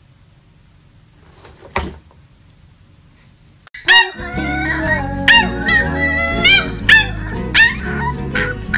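Puppy yipping in short, repeated rising-and-falling calls over loud background music with a steady beat, starting about four seconds in. Before that there is only a low hum and one faint click.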